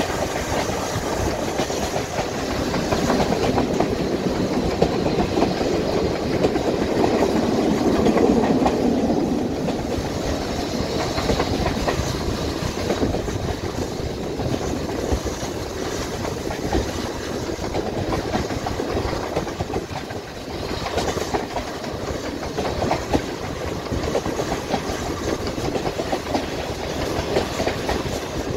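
Heritage railway passenger coaches running along the line: a steady rumble of wheels on the track with an irregular clatter. It is loudest a few seconds in and eases off after about ten seconds.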